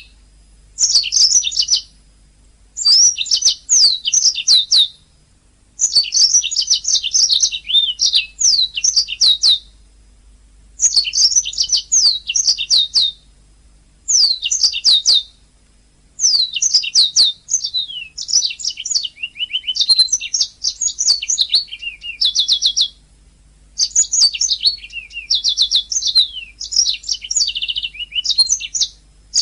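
Domestic canary singing: high-pitched phrases of rapid trills and chirps, each lasting a second or two, separated by short pauses.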